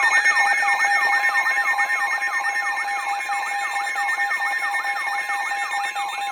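Emergency alert tone for a tornado warning: a steady multi-tone alert signal with a falling electronic sweep repeating several times a second.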